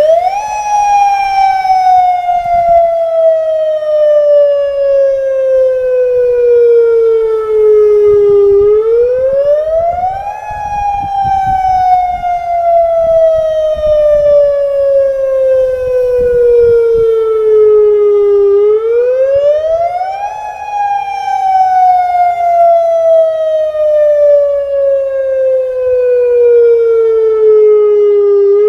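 Federal Signal Modulator 6024B electronic outdoor warning siren sounding during a monthly test. The tone rises quickly over about two seconds, then slides slowly down over about eight, and the cycle repeats three times.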